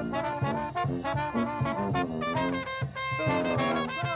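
New Orleans street brass band playing an upbeat jazz number: saxophone, trumpet and trombone lines over sousaphone and a bass drum keeping a steady beat.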